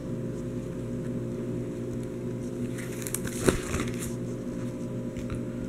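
Plastic binder page of trading-card sleeves being turned, a short crinkling rustle with a click about three and a half seconds in, over a steady low electrical hum.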